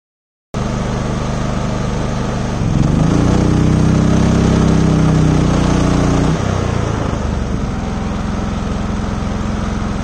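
Westinghouse inverter generator running steadily, then revving up and growing louder about two and a half seconds in as it takes the starting load of an unmodified rooftop air conditioner. A little after six seconds the sound drops suddenly as the inverter overloads and goes offline, and the engine settles back to a lower, steady run.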